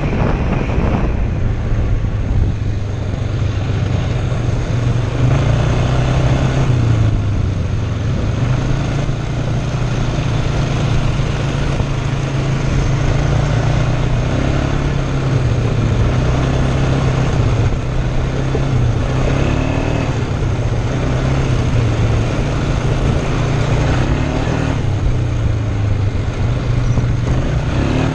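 ATV engine running while being ridden, its pitch rising and falling as the throttle changes.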